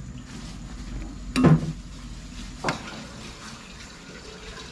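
Pot of tinola broth with tilapia and papaya bubbling at a steady boil, with two short knocks about a second and a half and nearly three seconds in, the first the louder.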